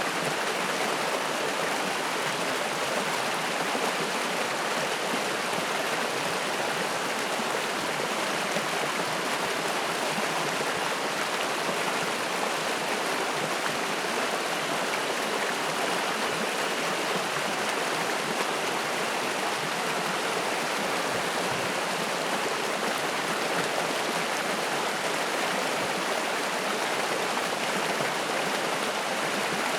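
A shallow, spring-fed mountain stream rushing and splashing over rocks, a steady, even sound of running water.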